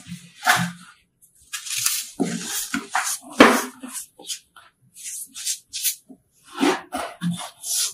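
A hand pressing, grabbing and crumbling soft chunks of rangoli powder, giving a series of short, irregular powdery crunches and rustles. The loudest crunch comes about three and a half seconds in.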